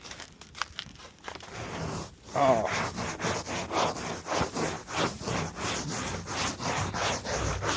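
Crunching, scraping strokes in snow and ice, quiet at first, then from about two seconds in a quick even run of about three strokes a second.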